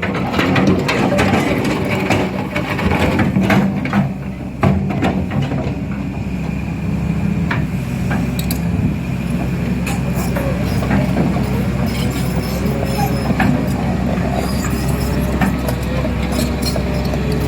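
Excavator's diesel engine running steadily under work, with sharp metallic clanks and knocks during the first few seconds.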